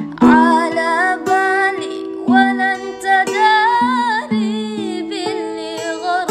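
Background music: a wavering melody with vibrato over plucked-string accompaniment and low held notes.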